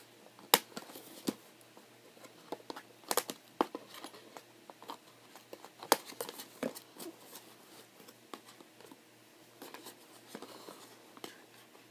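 Scattered sharp clicks, snips and crinkles of doll packaging being worked at by hand with scissors, cutting the cardboard and plastic fastenings that hold the doll in its box.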